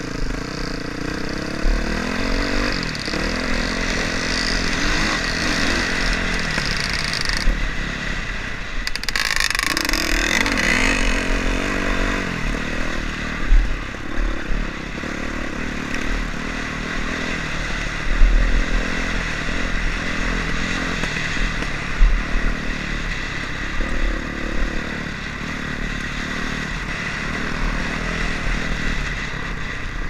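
Honda CRF450's single-cylinder four-stroke engine running under load on a trail ride, revving up and down with the throttle, with a few sharp knocks as the bike goes over rough ground.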